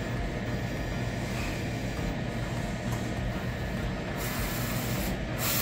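Roland SOLJET Pro III XC-540MT wide-format printer/cutter running a nozzle test print: a steady machine hum as the print-head carriage travels across the platen, with a high hiss coming in about four seconds in.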